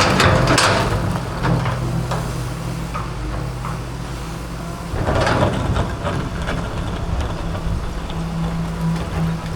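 Excavator's diesel engine running steadily, with loud scraping impacts at the start and about five seconds in and smaller knocks between, as the bucket breaks up a cement fence.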